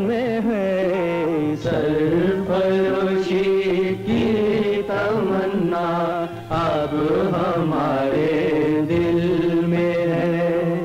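Background music: a melody of gliding, wavering notes over held low notes.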